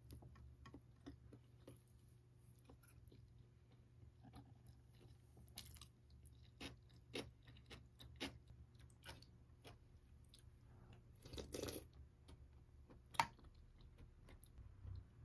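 Faint close-up eating sounds: chewing with many small clicks of chopsticks against dishes, a brief scraping rustle and one sharper knock near the end as a utensil goes into the stew pot.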